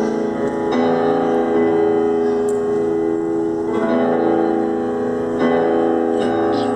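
Grand piano playing a slow song, with sustained chords that ring on and a new chord struck about every one to three seconds.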